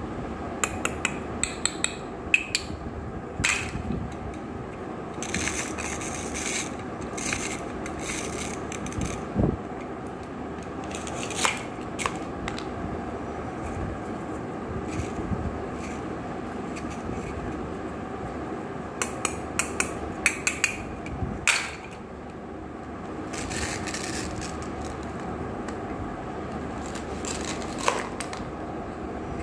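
Plastic toy fruit halves being pulled and sliced apart at their hook-and-loop fastener discs: short ripping scrapes, with sharp clicks and knocks of hard plastic pieces and a plastic knife against a plastic board, over a steady low hum.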